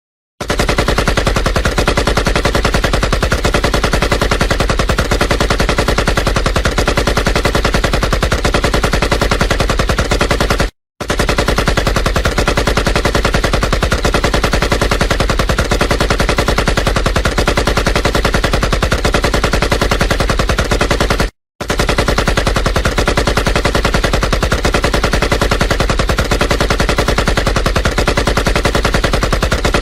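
Machine gun firing in a long continuous stream of rapid shots, cutting out twice for a split second, about 11 and 21 seconds in, then resuming.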